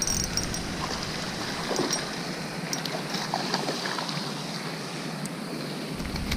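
Wind blowing across the microphone: a steady rushing noise, with low rumbling gusts in the first second and again near the end, and a few faint ticks in between.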